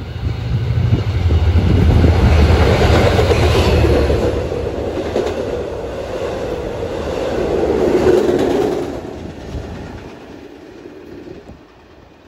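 Long Island Rail Road train of bilevel passenger coaches passing at speed right beside the platform, with a deep rumble and wheels clattering over the rails. It fades away after about nine seconds.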